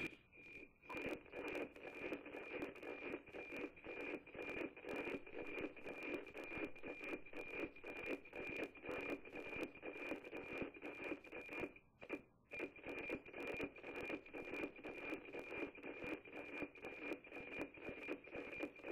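NOAA-18 weather satellite's APT image signal as heard from a VHF receiver: a steady high tone beaten by a fast, regular ticking over hiss, the sound of image lines being received. It fades out briefly just after the start and again about twelve seconds in.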